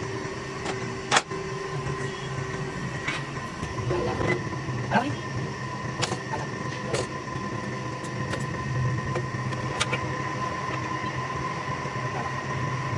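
Lathe running steadily with a low hum and a high whine, with sharp clicks and knocks at irregular moments as a steel spring is coiled on it.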